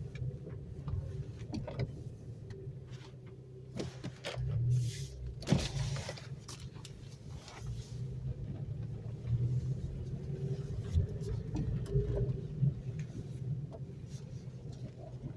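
Cabin sound of a Honda Civic Si coupe (FG2) on the move: its four-cylinder engine running with a steady low hum under road noise, with scattered short knocks and clicks and a louder thump about five and a half seconds in.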